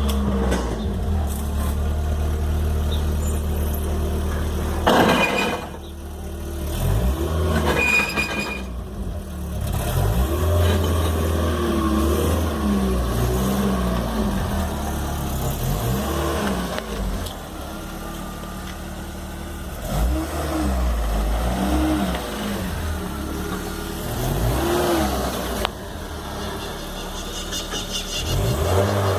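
Car engine running with a steady low rumble and short rises and falls in pitch from brief revs.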